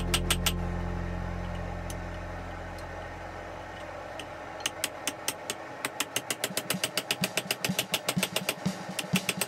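Hand hammer striking hot steel on an anvil: a few blows at the start, then from about five seconds in a quick, even run of blows, about five a second. Underneath, a low held music chord fades out over the first five seconds.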